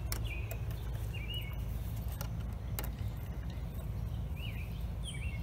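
A few sharp clicks of a key working in a shed door's T-handle lock, over a steady low rumble, with a bird chirping in short repeated notes.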